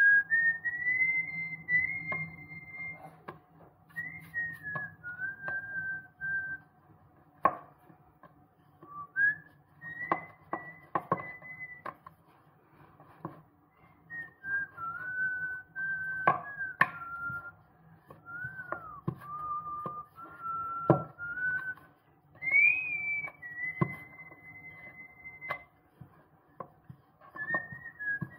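A person whistling a slow tune, one clear note that slides between pitches and holds in phrases with short breaks. Scattered sharp knocks of a wooden rolling pin on a wooden board as dough is rolled out, the loudest about halfway through.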